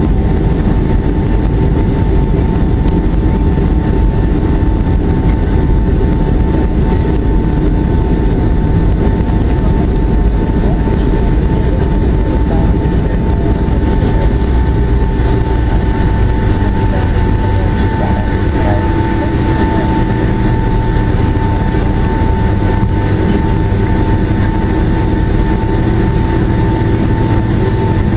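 Jet airliner's engines heard from inside the cabin while taxiing: a steady low rumble with a steady whine over it.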